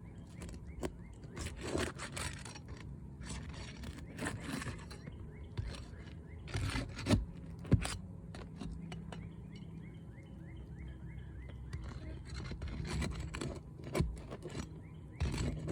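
Hand tool scraping and prying under roof shingles to free a damaged shingle, in repeated rough scrapes a second or two long, with a few sharp knocks.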